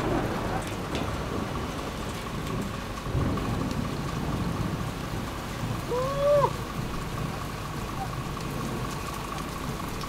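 Heavy rain falling in a thunderstorm, with low rumbles of thunder. A short rising-then-falling call about six seconds in is the loudest moment.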